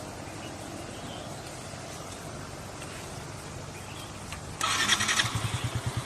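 A low steady hum, then an engine starts with a sudden loud burst about four and a half seconds in and runs on with a fast pulsing beat.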